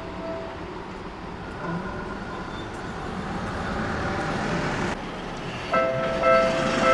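Low, steady rumble of passing traffic and rail for several seconds, then a Japanese level crossing's electronic warning bell starts ringing about five and a half seconds in, a pulsing, repeated tone signalling that the crossing is closing for a train.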